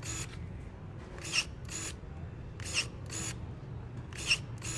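Cordless electric pruning shears working in repeated strokes, about one every second and a half. Each stroke is a pair of short motor whirs about half a second apart.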